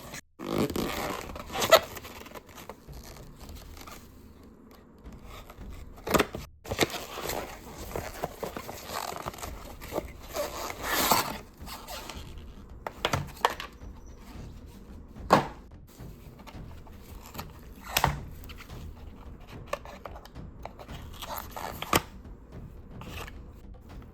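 A boxed plastic toy figure being unpacked by hand: the packaging is scraped and rustled, with sharp plastic clicks and knocks every few seconds.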